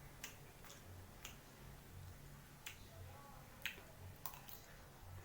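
Quiet eating: about eight short, sharp clicks at irregular intervals against near silence.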